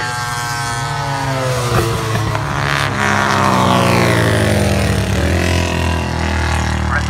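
Racing motorcycles passing at speed, several engine notes falling in pitch as they go by while others rise under acceleration.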